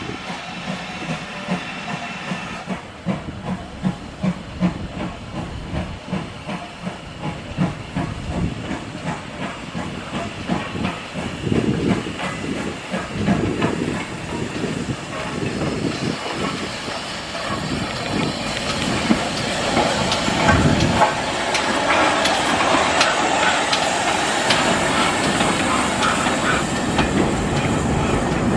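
Steam tank locomotive drawing a train of coaches along the platform, steam hissing with a rhythmic beat, growing louder as it comes close and passes. Near the end the coaches roll by.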